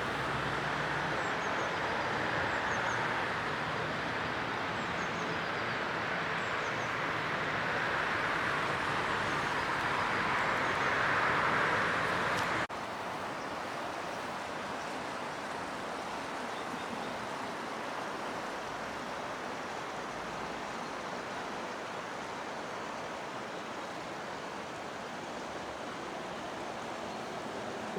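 Flowing river water rushing as a steady hiss, which drops suddenly to a quieter level about 13 seconds in.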